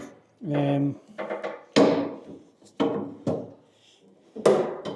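Metal clamps knocking and clanking against a Land Rover body panel as they are put on to hold the glued panel: about five sharp knocks, each ringing briefly. A short voiced hum comes just before the first knock.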